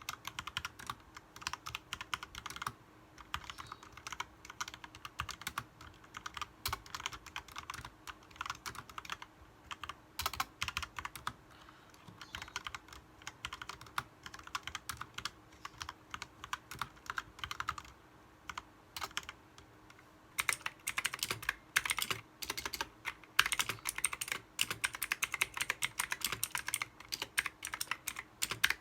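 Continuous fast typing on a mechanical keyboard, irregular key clicks all through. About two-thirds of the way in the keystrokes become louder and sharper.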